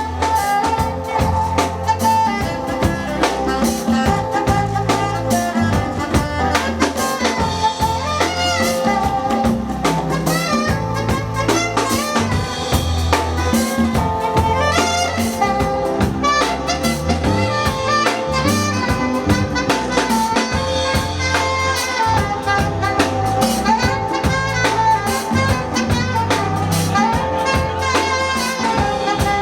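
Live band playing a continuous piece at a sound check, with drum hits and a bass line under a wavering melody line.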